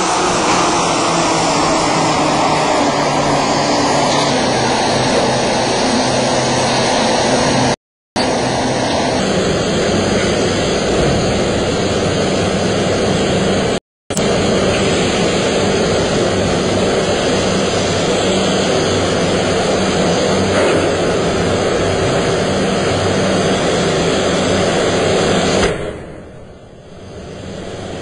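Loud, steady roar of forge-shop machinery at a 5-ton hydraulic forging hammer. It cuts out briefly twice and drops much quieter near the end.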